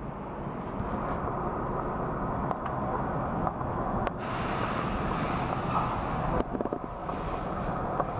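2003 Kawasaki ZX-6R's 636 cc inline-four engine idling steadily, with a few light clicks about two-thirds of the way through.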